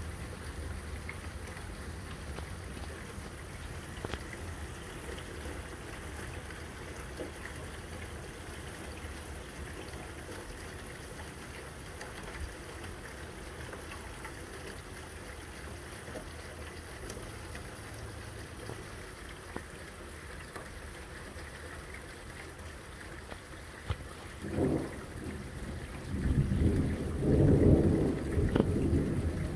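Steady rain falling. About 24 seconds in, a short burst of thunder is heard, then near the end a loud, long rumble of thunder.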